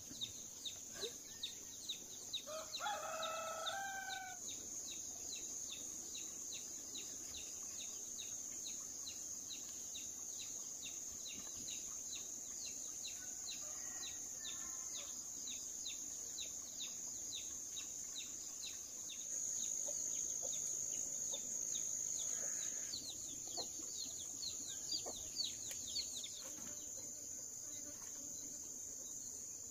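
A rooster crows about three seconds in, and more faintly again around fourteen seconds, over a steady high drone of insects and a run of quick, repeated falling chirps.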